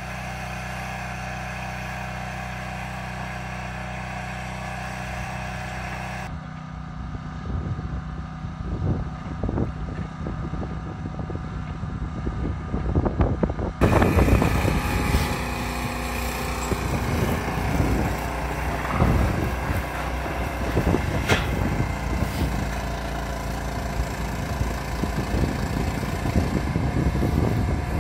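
Machinery engines running steadily, the tractor and the boom lift working at a barn roof, with the engine sound changing abruptly twice, near 6 s and near 14 s. From about halfway on, scattered sharp knocks sound over the engines, fitting corrugated sheet-metal roofing being handled.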